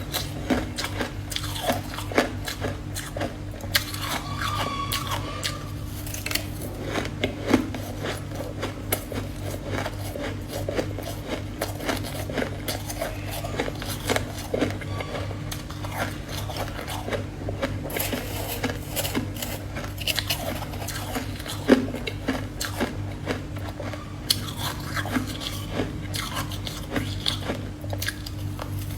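Ice being bitten and chewed close to the microphone: a dense, continuous run of crisp crunches, over a steady low hum.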